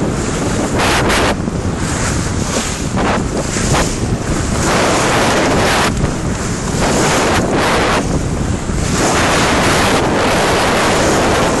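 Wind buffeting the microphone over the rush and splash of sea water along the hull of a sailing yacht under way, loud and gusting.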